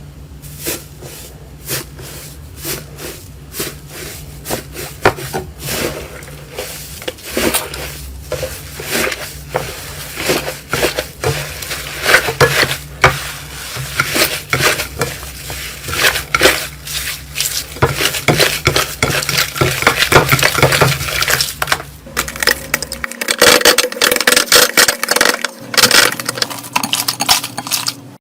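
Slime being squeezed and pressed by hand, giving a dense run of sharp clicks, pops and crackles, the sound of crunchy slime.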